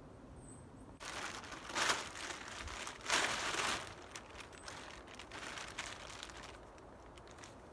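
Green polyethylene tarp crinkling and rustling in uneven bursts as it is pulled and adjusted over a ridge pole, starting about a second in.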